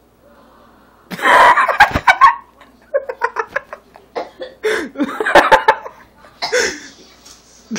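A boy coughing and sputtering on a mouthful of dry cocoa powder, in loud, irregular bursts beginning about a second in, mixed with laughter.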